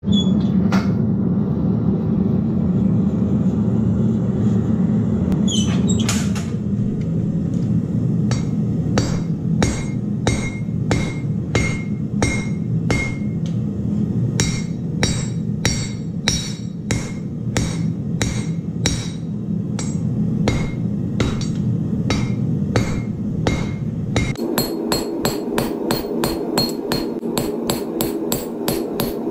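Hand-hammer blows on red-hot steel on an anvil, each a sharp strike with a short metallic ring, about two a second from about six seconds in, quickening to about three a second near the end. Under them the steady roar of the gas forge's burner, which falls away shortly before the blows quicken.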